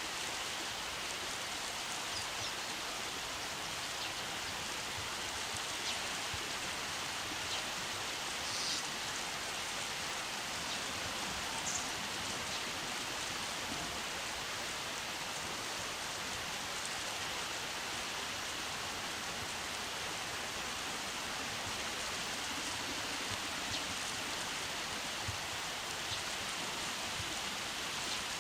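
Steady rushing of flowing river water, an even hiss with no pauses, with a few faint short high sounds over it.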